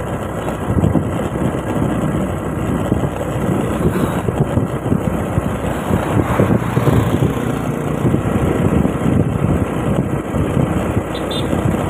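Wind rushing and buffeting over the microphone of a moving scooter, with the scooter's engine and road noise running underneath.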